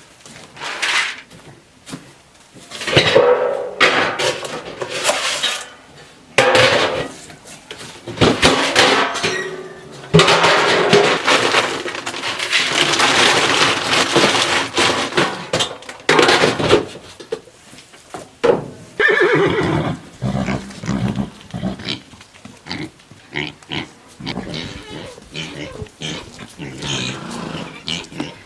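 Horses whinnying, several loud calls one after another.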